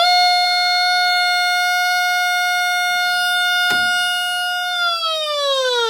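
Electronic gas leak detector's alarm tone held at a steady high pitch, signalling gas at the leak. It falls in pitch near the end as the reading drops. A single click comes a little before that.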